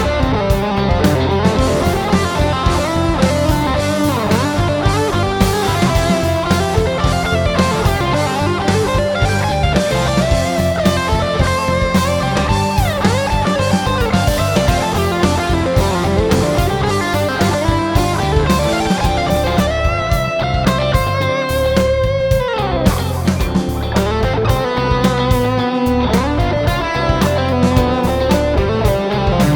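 Electric guitar, an Ibanez AZ2204, playing a melodic lead solo over a backing track with drums and bass. The lead has sliding notes and a long downward pitch dive about two-thirds of the way through.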